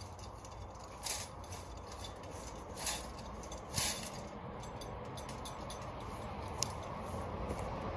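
Hand digging and scraping in forest dirt while a wire cage trap is bedded in: four short knocks and scrapes, the loudest about four seconds in, over steady low wind rumble that grows toward the end.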